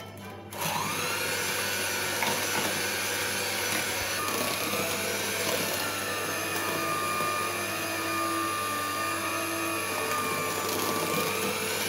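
Electric hand mixer switched on about half a second in. It runs steadily, beaters whirring through thick cake batter as eggs are beaten into creamed butter and sugar. Its motor whine dips and rises slightly.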